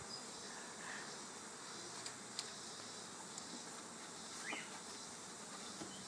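A honeybee swarm buzzing: the steady hum of many bees in flight around the cluster as it is being coaxed into a box.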